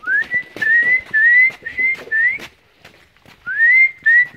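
A person whistling to call puppies: a run of short notes, each sliding slightly upward, a pause of about a second, then a longer rising whistle followed by more short notes.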